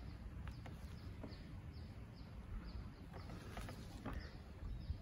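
A bird calling over and over, short descending chirps about two or three a second, faint over a low steady rumble.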